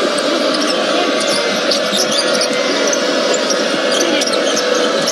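Basketball game sound in an arena: a ball being dribbled on the hardwood court over steady crowd noise, with many short sharp sounds scattered through it.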